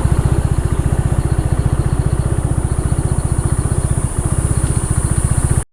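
Scooter engine running at a low, steady speed, a rapid even putter of about a dozen beats a second, close to the microphone.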